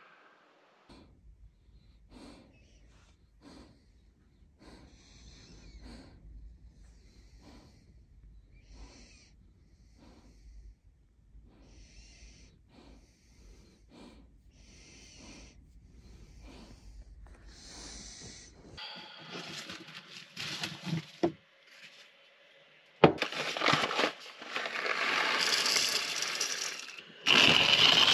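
Slow, wheezy nasal breathing of a resting German shepherd, about one breath a second, over a faint low hum. Near the end come louder household noises, a sharp knock and a hiss, and then a hand coffee grinder starts to turn.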